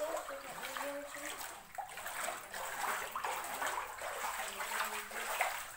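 Bare feet wading through ankle-deep floodwater on a house floor, with repeated splashes and sloshing as each step lands.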